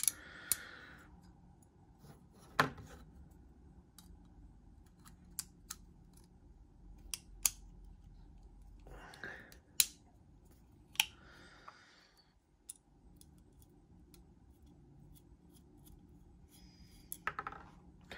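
Cheburkov Small Strizh folding knife worked by hand: scattered sharp metallic clicks of the blade opening and closing against its detent and liner lock, with a few short soft rubs of hands on the handle between them. The pivot's action is being tested after the bearings were turned around.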